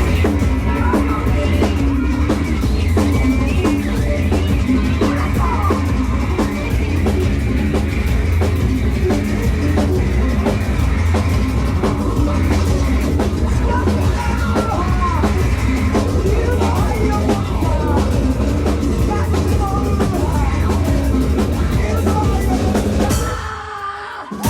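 Live rock band playing loud and dense, drum kit driving the beat under bass and melodic instruments. Near the end the band drops out almost entirely for about a second, then comes back in.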